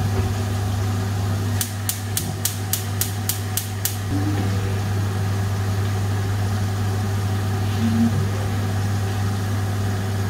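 Gas hob's spark igniter clicking about nine times in quick succession, about four a second, a couple of seconds in, as a burner is lit. Under it runs a steady low mechanical hum.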